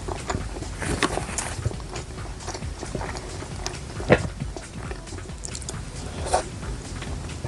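Close-up chewing and lip-smacking while eating grilled chicken liver, with irregular wet mouth clicks and two sharper clicks, one about four seconds in and one near six seconds.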